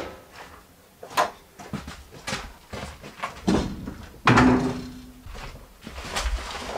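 Several separate knocks and thuds of handling work: a plastic bucket and sawn log rounds being moved on a sawdust-covered floor. The loudest is a heavy thud just after four seconds in, followed by a brief low hum.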